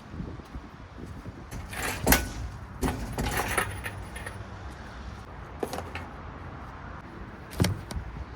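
Metal clanking and rattling as an engine is worked out of the engine bay on an engine hoist, with jangling like a hoist chain. The loudest knock comes about two seconds in, a run of rattles follows a second later, and another sharp knock comes near the end.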